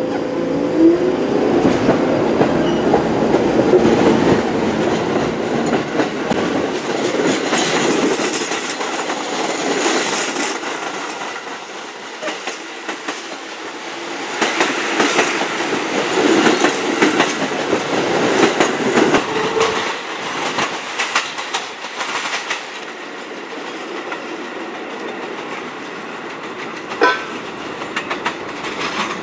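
New York subway train of R46 cars pulling out and running past, with rolling rumble and wheels clacking over rail joints and switches; it fades after about 22 seconds, leaving a quieter rumble and a single sharp clack near the end.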